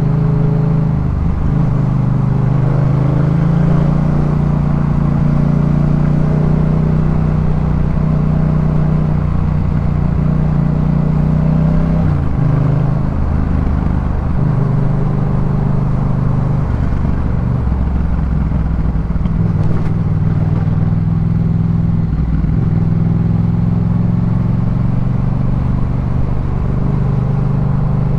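Yamaha MT-07 parallel-twin engine with a Jeskap K4 full aftermarket exhaust, running under way. Its note rises and falls with throttle and gear changes, with a break in the note about twelve seconds in.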